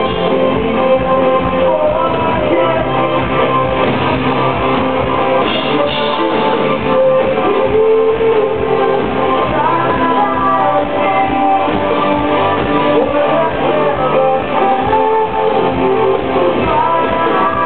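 A rock band playing live: electric guitar and full band over a steady beat, heard from within the audience. The sound is dull, with no highs.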